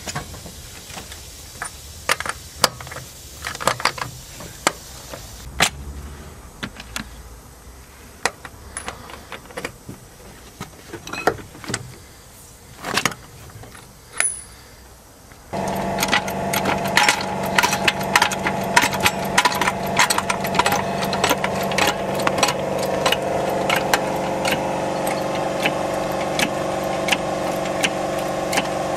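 Metallic clicks and clinks of a socket and bar working the wheel nuts of a steel wheel. About halfway a steady droning hum starts suddenly and runs on under the clicking.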